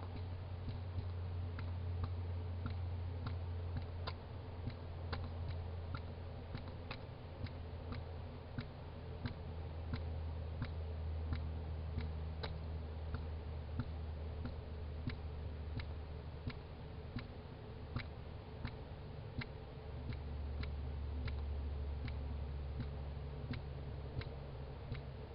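Small sharp clicks repeating steadily about two a second from a young hedgehog, which the owner suspects may be hiccups. A low steady hum sits underneath.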